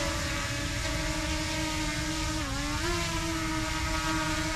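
DJI Mini 2 drone's propellers whining steadily as it lifts off and flies, the pitch dipping briefly about two and a half seconds in and then coming back up.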